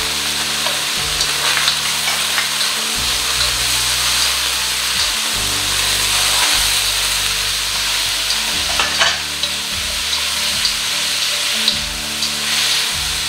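Pork strips and chopped ginger sizzling in a hot oiled wok, stirred with chopsticks that click now and then against the metal. Partway through, strips of Jerusalem artichoke go in and the stir-frying hiss carries on.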